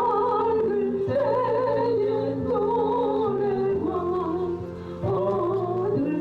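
A solo voice sings a Korean gospel hymn with a wide vibrato over held accompaniment chords, pausing briefly between phrases about five seconds in.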